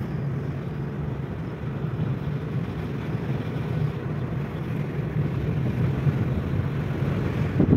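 Car cabin noise while driving along a highway: a steady low engine and road hum.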